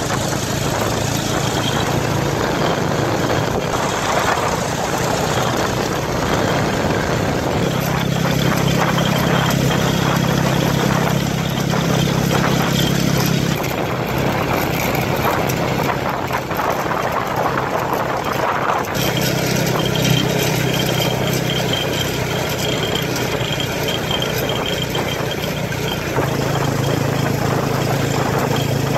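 Small motorbike engine pulling a tuk-tuk carriage at a steady road speed, its note stepping up and down a few times as the rider speeds up and eases off, over a constant rush of wind and road noise.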